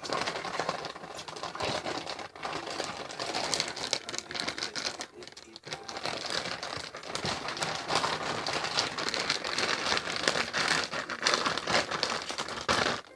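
Homemade glue slime being squished and kneaded by hand: a dense, continuous wet crackling and popping, with a short lull about five seconds in.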